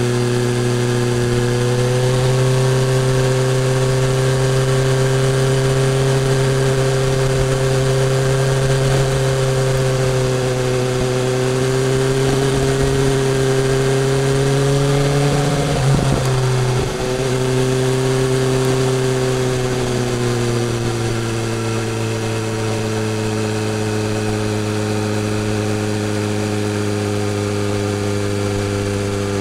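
BMW S1000R's inline-four engine running steadily on the move, its pitch nearly level. There is a brief break in the sound about halfway through, and the pitch settles slightly lower afterwards.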